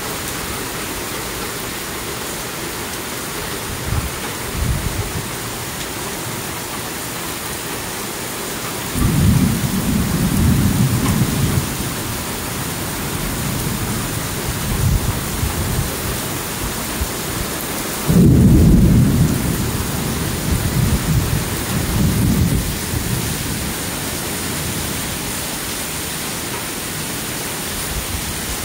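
Heavy thunderstorm rain falling steadily, with several low rumbles of thunder, the loudest about eighteen seconds in.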